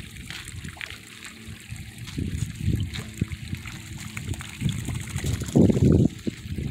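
Wet mud sloshing and splashing as puppies shift and wallow in a shallow mud puddle, in irregular surges, loudest near the end.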